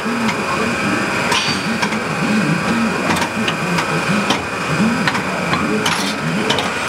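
CNC center point grinder running through its automatic cycle: a steady machine hum with a high whine, and sharp clicks and knocks every second or two as the pneumatic loader grips and moves the rod workpiece.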